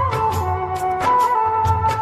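Background music: an instrumental passage of a Hindi film-style song, a melody line with quick ornaments over a steady percussion beat and bass.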